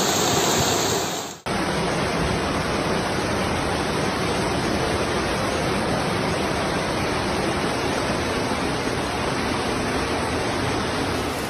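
Steady rushing noise of torrential rain and floodwater pouring through a street, with an abrupt cut about a second and a half in to another stretch of the same steady water noise.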